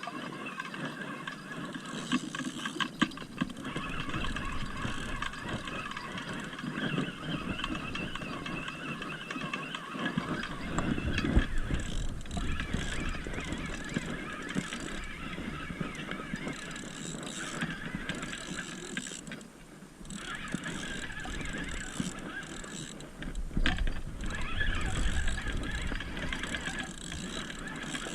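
Fishing reel gears whirring and clicking, with wind rumbling on the microphone from about ten seconds in.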